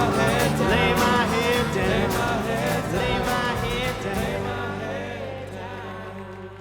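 Instrumental ending of a country-folk song, with no singing. From about four seconds in it settles on one held final chord, which fades away.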